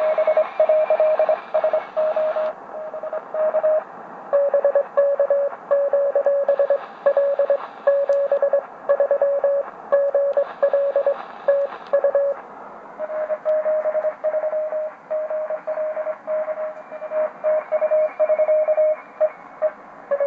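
Morse code (CW) on the 40-metre amateur band heard through the speaker of a Tecsun PL-660 shortwave receiver: a single beeping tone keyed on and off in dits and dahs over band hiss. The tone's pitch steps slightly lower about four seconds in and back up near thirteen seconds.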